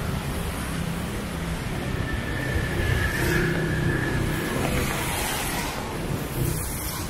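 Road traffic on a city street: a steady wash of engine and tyre noise with a low rumble. A faint high whine rises out of it for a couple of seconds near the middle.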